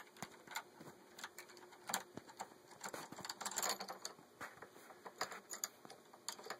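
Light, irregular clicking and tapping of small metal bracelet hardware (a ring, clip and shackle) handled between the fingers, with a brief burst of rustling and clicking about three and a half seconds in.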